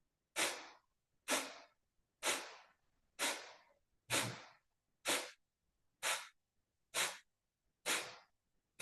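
Kapalabhati breathing: short, forceful exhalations pushed out through the nose by the belly, one about every second, nine in all, each a sharp puff that fades quickly, at a slow, even pace.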